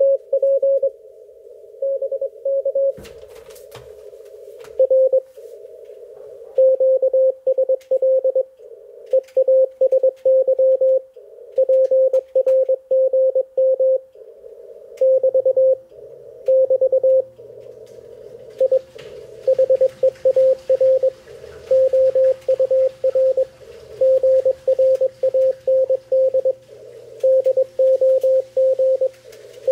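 Morse code (CW) from an Icom IC-746PRO HF transceiver on the 80-metre band: a single steady beep keyed on and off in dots and dashes, with band noise hissing between the characters. About halfway through, a faint low hum joins in.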